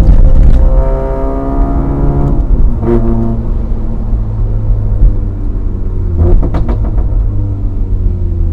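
Honda CR-Z's 1.5-litre four-cylinder engine heard from inside the cabin through a custom straight-through trumpet exhaust while driving. The engine note climbs, drops at a gear change about two seconds in, climbs again, then runs on at a steadier pitch. A few short clicks come about six seconds in.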